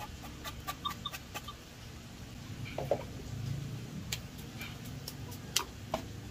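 A scatter of short, sharp clicks and taps, loudest about four and five and a half seconds in, over a low steady hum.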